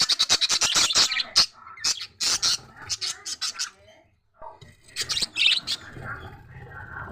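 A flock of birds chirping and squawking in quick, sharp calls, thickest in the first second or so, with a brief lull about four seconds in.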